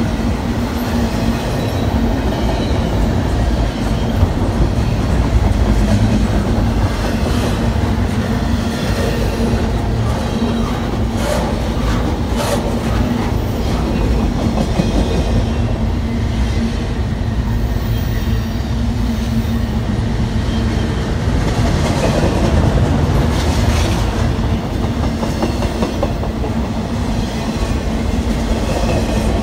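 Double-stack intermodal freight train's well cars rolling past: a steady rumble of steel wheels on rail with the clickety-clack of the wheels, and a few sharper clicks about halfway through and again later on.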